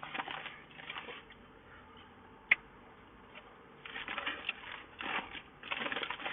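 A person eating close to the microphone: chewing in several short spells, with one sharp click about two and a half seconds in.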